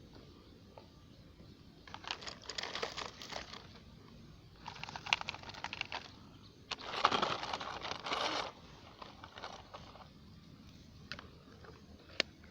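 Loose soil crunching and trickling in three gritty bursts, the longest near the middle, as a toy RC excavator's bucket scrapes up earth and tips it out, with a few small clicks.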